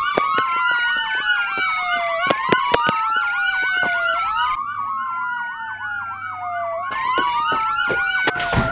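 Police siren wailing, its pitch slowly rising and falling, overlaid with a second, faster up-and-down siren tone and scattered sharp clicks.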